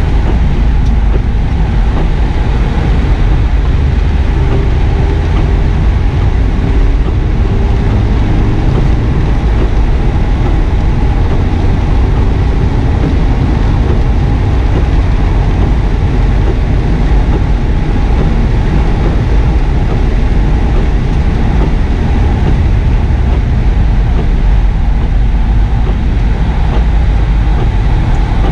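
Cabin noise of a 2009 Subaru WRX S at speed on a wet track: the turbocharged flat-four engine is pulling hard under a steady low rumble of road and tyre noise. The car speeds up to about 60 mph, then slows for a corner near the end.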